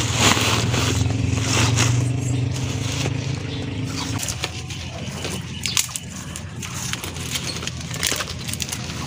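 Cut hyacinth bean vines and leaves crackling and rustling as they are handled, clipped with pruning shears and crushed into a sack, in a run of short snaps. Under them, an engine hums steadily and cuts off about four seconds in.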